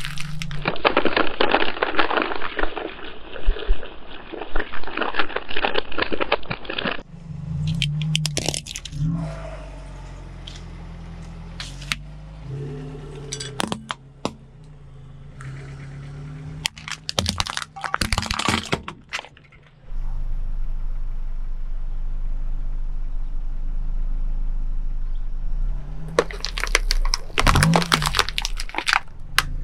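Plastic objects crushed under a car tyre: a long stretch of dense crackling and crunching, then scattered sharp cracks and pops. The car's engine runs low underneath and revs up several times, most strongly near the end.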